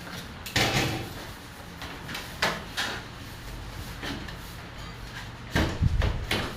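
A few irregular knocks and scrapes, like objects being handled or moved. The loudest come about half a second in and in a cluster near the end.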